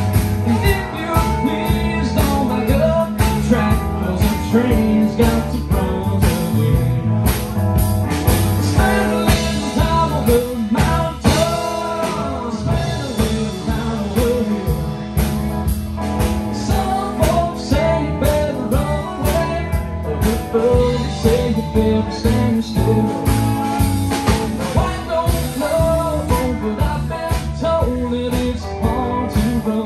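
A live rock band playing, with electric guitars, electric bass and a drum kit keeping a steady beat.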